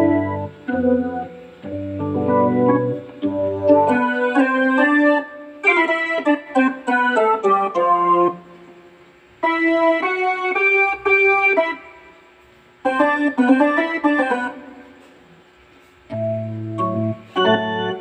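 Yamaha PSR-E333 portable keyboard being played: chords and quick runs in short phrases separated by brief pauses, with deep bass chords at the start and again near the end.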